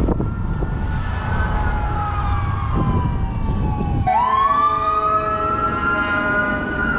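Emergency vehicle siren wailing over a low rumble: its tone slowly falls, then about four seconds in sweeps back up and climbs slowly.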